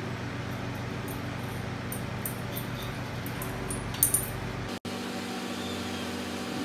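Small stainless steel sheet-metal pieces clinking lightly as they are handled, with two sharper metal clicks about four seconds in, over a steady low hum. Near the end the hum breaks off abruptly and a different steady hum takes over.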